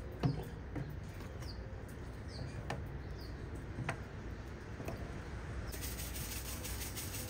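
Potato slices being set down one by one in an aluminium roasting pan, a string of light taps and clicks, with a few faint bird chirps behind. From about six seconds in, a pepper grinder grinds over the pan with a fast, gritty crackle.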